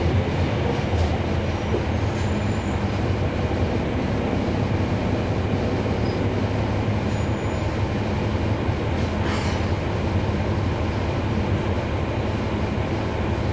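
Steady drone of a NABI 40-SFW transit bus's Cummins ISL9 inline-six diesel running, heard from inside the passenger cabin with a dense low rumble. A brief rattle or hiss sounds about nine seconds in.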